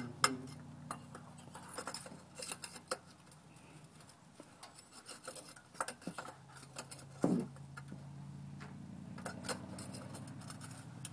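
A hand handling and turning a spin-on oil filter under a truck, with scattered small metal clicks, clinks and rubbing. A vehicle engine hums low in the background, a little louder in the second half.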